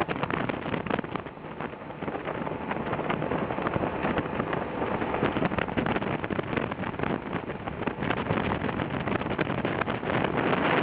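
Motorcycle on the move, its engine running under a steady rush of wind over the on-board microphone, getting a little louder near the end.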